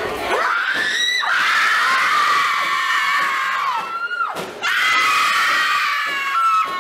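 High-pitched screaming: a long held scream that starts just after the beginning and falls away about four seconds in, then another that starts about a second later and carries on.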